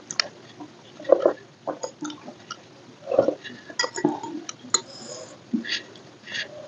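Eating sounds close to the microphone: irregular chewing and mouth clicks, with a few short clinks of dishes.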